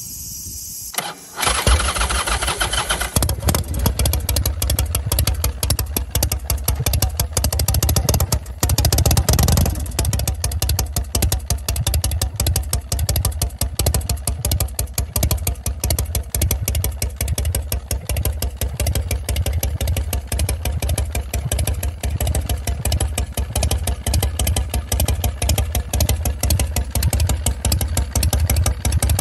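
S&S Shovelhead V-twin motorcycle engine firing up about a second in and settling into a steady, pulsing idle through shotgun exhaust pipes. It is revved briefly about nine seconds in.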